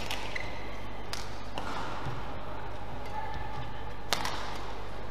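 Badminton rackets striking the shuttlecock in a rally: a few sharp hits a second or more apart, the loudest about four seconds in, with short squeaks of court shoes on the mat in between, over a steady hall hum.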